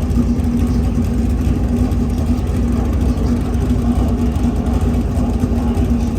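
Race car engines running at a steady, unchanging pitch over a heavy low rumble.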